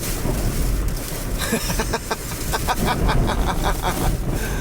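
Hurricane-force wind gust buffeting the microphone: a dense, heavy rumbling rush. A rapid rattling clatter runs through the middle of it.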